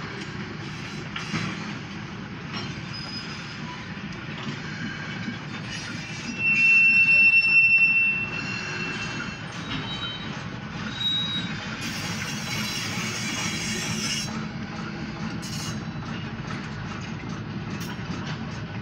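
Freight train of covered hopper cars rolling slowly past, a steady rumble of wheels on rail heard from inside a car. A loud, high-pitched squeal rings out for about a second and a half, some six seconds in, with fainter squeals later.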